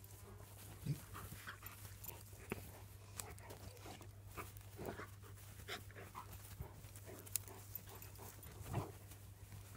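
Tornjaks (Bosnian-Croatian sheepdogs) play-wrestling: faint, irregular panting and scuffling.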